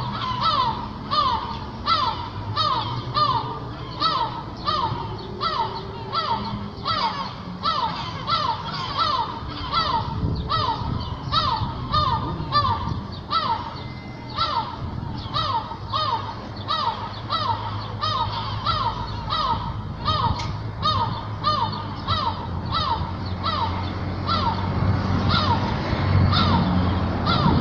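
A bird calling over and over, a short falling note repeated two to three times a second without a break, over a steady low hum.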